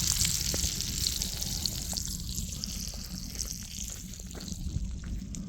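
Duck eggs and sausage sizzling in a frying pan, a high hiss full of small crackles that slowly dies down.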